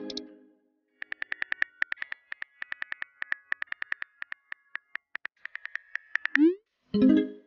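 Phone on-screen keyboard clicking quickly as a message is typed, about six clicks a second. Near the end comes the short rising whoosh and chime of the message being sent.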